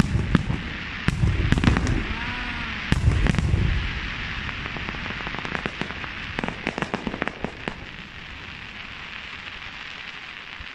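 Fireworks display at a distance: deep booms of shells bursting in the first few seconds, then a quick run of sharp crackling pops in the middle, over a steady crackle that fades toward the end.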